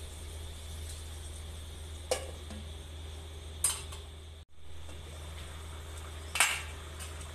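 Three sharp metal clanks of a spatula and pot lid against an aluminium cooking pan, the last the loudest, over a steady low hum. The sound drops out for an instant just past the middle.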